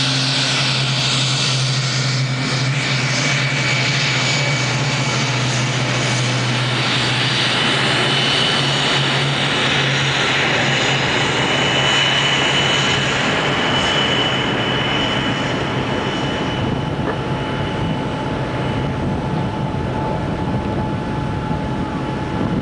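Douglas DC-3 re-engined with modern engines at takeoff power, a loud steady drone with a high whine, on its takeoff roll and climb-out. The sound eases off over the last several seconds as the plane climbs away.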